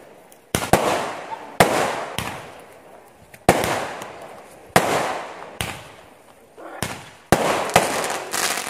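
Aerial firework shells bursting overhead: a string of about ten sharp bangs, roughly one every second or less, each fading away in a trailing echo.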